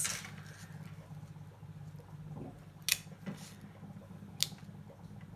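Hands handling and placing a paper planner sticker: quiet paper handling with a few sharp clicks, one about three seconds in and another near the end, over a faint steady low hum.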